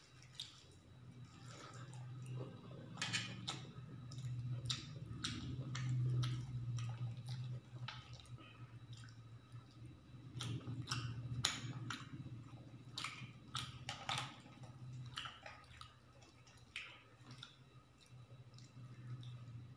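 Close-up eating by hand: chewing mouthfuls of rice and chicken curry, and fingers mixing the food on a steel plate. It is heard as many short, wet clicks over a low, steady hum.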